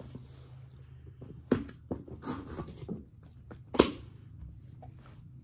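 A plastic pet-wipes canister being opened and a wet wipe pulled out: a few sharp clicks and snaps from the lid, the loudest a little before four seconds in, with soft rustling in between.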